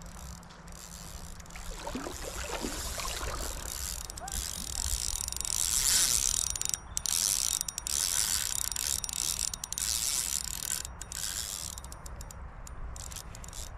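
Okuma Cymar C30 spinning reel working under the load of a hooked golden trevally: a fast ratchety whirr of the gears and drag that grows loudest about six seconds in and breaks off briefly twice.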